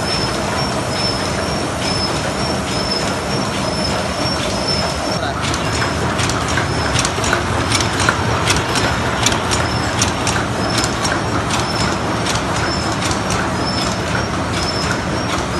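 ZSL-31 open-cam paper cup forming machine running at production speed: a steady mechanical din with a short high chirp repeating about twice a second. From about five seconds in, a rapid clatter of sharp clicks rises over it.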